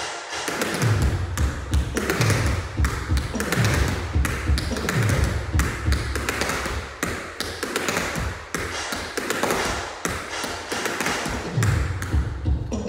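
Tap shoes striking the floor in quick runs of taps, a shuffle, pick-up and pull-change tap drill, over music with a steady low beat.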